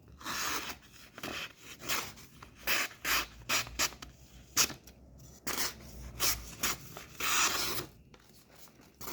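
Blade of a Victorinox Hunter Pro Alox knife being honed, drawn in a series of irregular rasping strokes across a sharpening surface to bring back an edge dulled by cutting.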